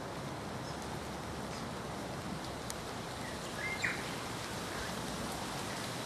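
Steady hiss of outdoor background noise, with a brief faint bird call a little past halfway.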